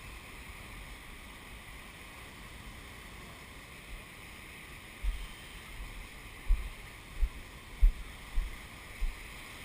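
Steady rush of heavy ocean surf breaking, with short low thumps of wind buffeting the microphone from about five seconds in.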